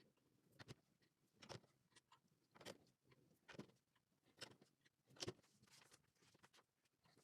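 LEGO plastic pieces being handled and pressed together: faint clicks and taps, about one a second.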